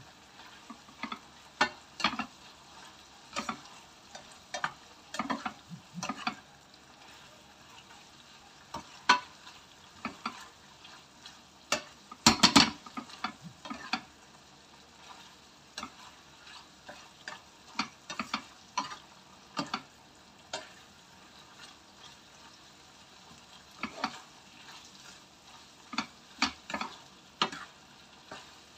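A spatula scraping and knocking against a frying pan as sliced chicken with chillies is stirred, in irregular strokes over a faint sizzle. The loudest clatter comes about twelve seconds in.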